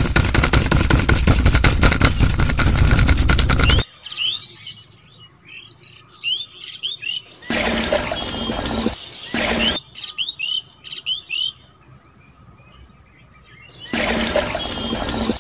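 The small DC motor of a toy-scale mixing machine runs with a fast rattle, then stops abruptly about four seconds in; birds chirp throughout. Two louder noisy stretches follow, one around eight seconds in and one near the end, while thick grey slurry is poured from a small cup.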